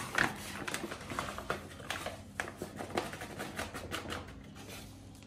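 Paper flour bag crinkling and rustling as it is handled and flour is scooped out with a metal measuring cup: a run of quick crackles that dies down about four seconds in.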